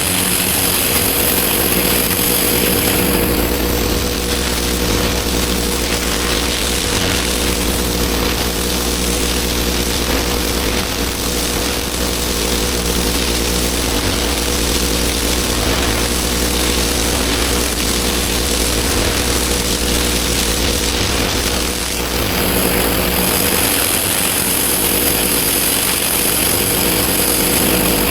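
A pressure washer's engine running steadily, with the hiss of the high-pressure water jet on block paving. The hiss is brightest at the start and again near the end.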